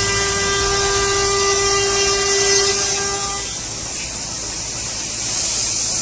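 CNC router spindle running with a steady high-pitched whine that cuts off about three and a half seconds in, leaving a hiss that grows louder near the end.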